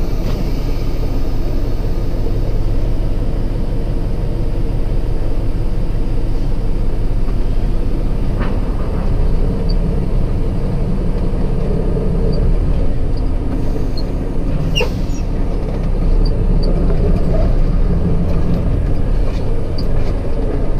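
Steady low rumble of a container truck's diesel engine and drivetrain heard from inside the cab as the truck rolls slowly, with a couple of faint clicks or rattles.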